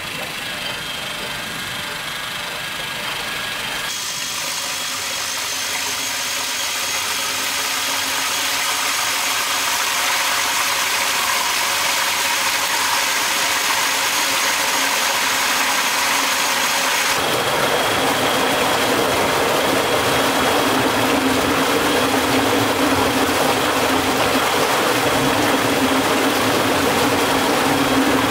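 Water rushing through an opened sluice gate onto a homemade steel-drum water wheel, growing steadily louder. Later a steady low hum joins as the wheel turns and drives a belt-driven generator.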